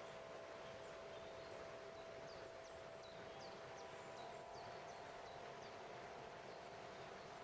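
Faint, steady held tones of a crystal harp (a set of quartz crystal singing bowls) over the even hiss of water running over a waterfall. A bird gives a quick run of short, high, falling chirps from about two to four seconds in.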